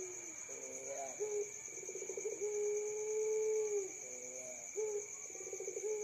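Puter pelung dove, a long-voiced breed of domestic ringneck dove, cooing. Twice, a short rising phrase and a fast rolling trill lead into a long, steady, low coo, the second starting near the end.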